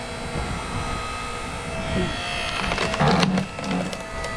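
Wood cracking and splintering as a maple log is split, loudest about three seconds in. Under it an engine runs steadily.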